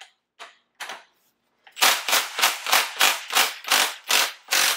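Milwaukee Fuel cordless impact wrench on a crankshaft pulley bolt: a few short blips of the trigger, then, just under two seconds in, it hammers in a rapid pulsing rattle, working the stripped bolt loose without the crank being counter-held.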